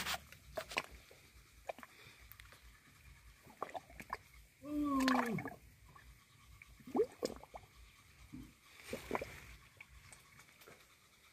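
Wet mud and muddy water squelching and sloshing as a hand digs down into a flooded mud burrow, with scattered sharp wet slaps. About five seconds in, a short voiced call with a falling pitch stands out above it.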